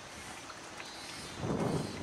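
Outdoor ambience with wind buffeting the microphone, a stronger gust about one and a half seconds in.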